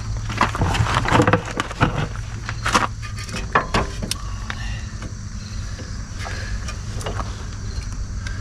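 Brake pads clicking and clacking against the metal abutment clips of a rear caliper bracket as they are worked into place, a quick run of sharp knocks in the first few seconds, then only a few, over a steady low hum.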